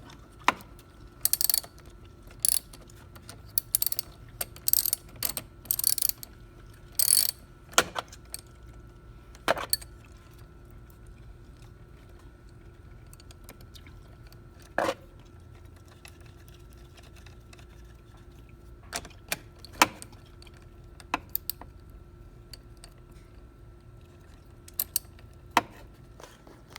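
Ratchet wrench with a 10 mm socket clicking in quick bursts as it tightens the positive battery terminal clamp nut, then scattered single clicks and knocks from the tool. A faint steady tone runs underneath.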